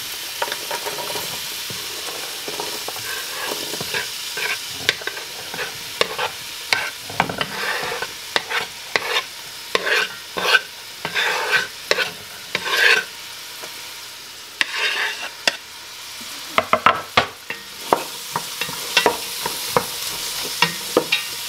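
Diced carrots, celery and onion sizzling in hot olive oil in a stainless steel stock pot as they are scraped in off a wooden cutting board, with many short knocks and scrapes of a wooden spatula on the board and the pot rim. Near the end a wooden spoon stirs the vegetables in the pot.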